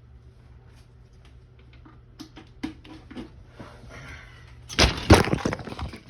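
Handling noise at a workbench: scattered small clicks over a steady low hum, then a loud burst of crackling and clattering about five seconds in, lasting about a second.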